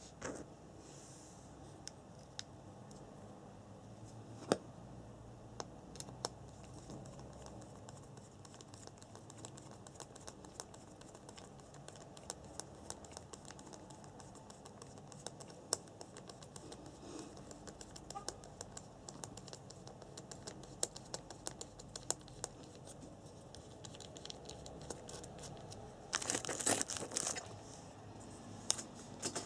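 Faint scattered clicks and taps of hands and small parts being handled on an RC buggy's gearbox, with a louder rustling scrape lasting about a second near the end.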